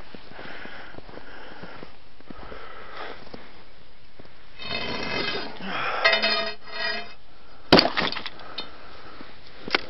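Footsteps crunching in snow on pond ice. Partway through comes a few seconds of a muffled, pitched, voice-like sound, and just before the end a single sharp knock.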